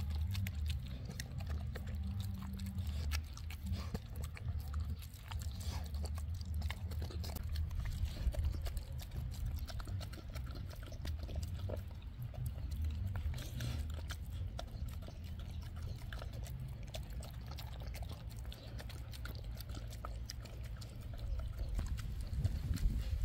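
A dog chewing and crunching raw lamb shank and ground beef, with irregular short crunches and clicks, over a steady low hum.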